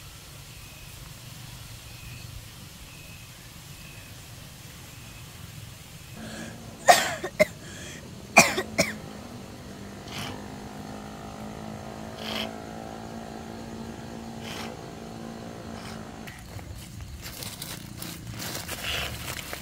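A sick boy coughing: two pairs of sharp, loud coughs about a second and a half apart, then a few fainter ones later. A steady motor drone runs underneath from about six seconds in until a few seconds before the end.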